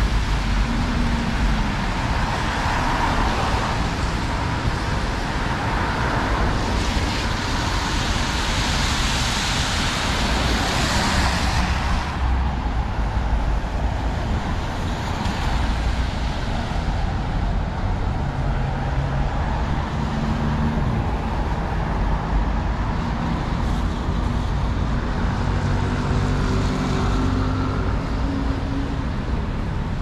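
Road traffic on a wet, slushy street: car tyres hissing on the wet asphalt, loudest as a vehicle passes about seven to twelve seconds in. In the second half there is a low steady hum of engines.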